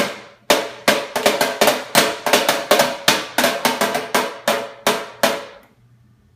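A box struck repeatedly like a drum: about twenty quick, uneven hits over five and a half seconds, each with a short resonant ring, then they stop.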